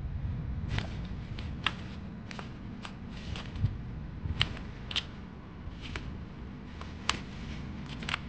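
Kittens' claws scratching and batting at a corrugated-cardboard scratcher and its loose cardboard strips: irregular sharp scratchy clicks and rustles, a few louder ones, over a steady low hum.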